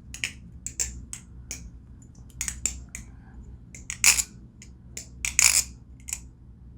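Irregular clicks and clacks from a Koenig balisong and its rubbery handle caps being handled as the caps are pushed onto the handle ends. The two loudest clacks come about four and five and a half seconds in.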